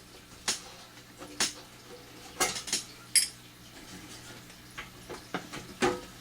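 Scattered sharp metallic clinks and knocks, about eight in all at irregular intervals, as of metal tools or parts being handled and set down. The sharpest comes about three seconds in.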